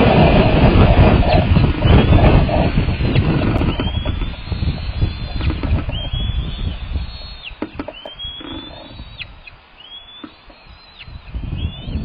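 Strong wind buffeting the microphone, a heavy rumble that eases after about five seconds and picks up again near the end. Over it come bald eagle calls: a series of high, thin chirps, each a short slide that rises and then drops, repeated many times through the second half.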